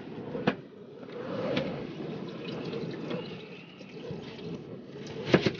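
Water splashing and trickling in a cooking pot, with a few sharp knocks, a cluster of them near the end.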